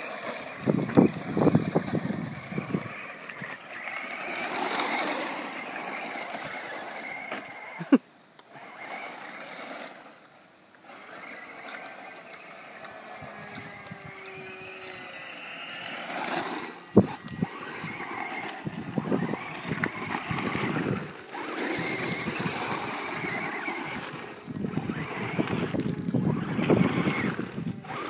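Traxxas Slash 4WD VXL RC truck running on a 2S LiPo, its brushless electric motor whining up and down in pitch as it accelerates and slows, with tyres crunching and scattering gravel. Two sharp knocks stand out along the way.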